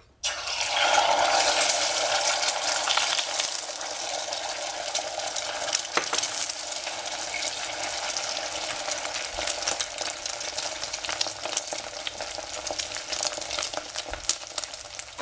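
Beaten eggs hitting a hot pan with a sudden loud sizzle, which eases after a couple of seconds into a steady frying sizzle. Small taps and scrapes of stirring are scattered through it.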